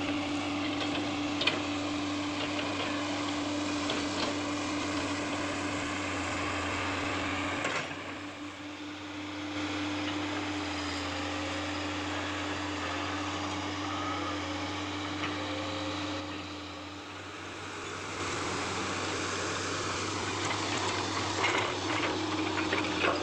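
Komatsu PC200 hydraulic excavator's diesel engine running steadily with a constant drone, easing off briefly twice, about eight and seventeen seconds in.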